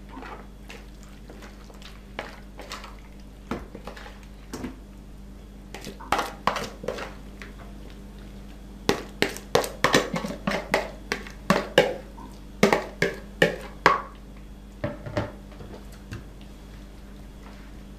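A fork scraping and tapping against a plastic mixing bowl and a metal baking tray as sliced potatoes with mince are scooped out and spread: scattered short clicks and knocks, sparse at first and coming thick and fast for several seconds in the second half.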